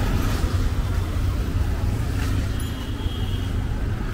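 Street traffic: motor vehicles running and passing, with a steady low rumble.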